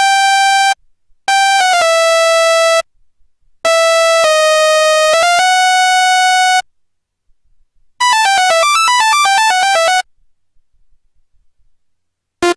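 Serum software synthesizer patch played as three held, buzzy notes, each stepping down or wobbling in pitch, then a quick run of short notes falling in pitch, and a single brief blip near the end.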